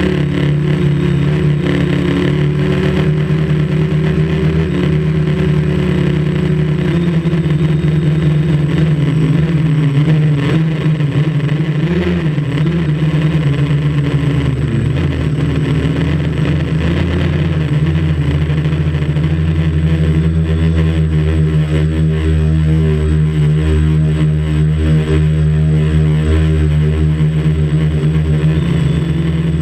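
Quadcopter's electric motors and propellers buzzing steadily in flight, heard close up from a camera on the aircraft. The pitch wavers through the middle as the motors adjust speed, then holds steadier near the end.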